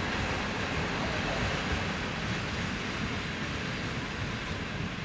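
Passenger coaches of a departing train rolling away over the rails: a steady rumble of wheels on track that eases slightly as the end of the train recedes.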